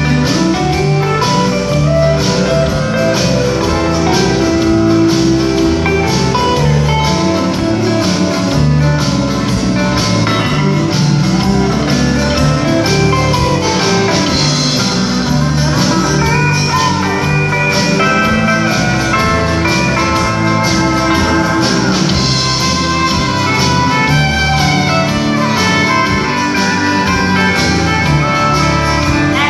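Live country band playing: guitars and fiddle over a steady bass and drum beat, heard through a hall's sound system.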